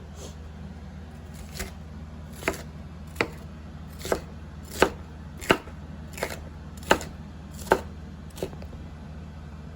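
Knife chopping vegetables on a cutting board: about ten separate, unhurried strokes, roughly one every 0.7 seconds.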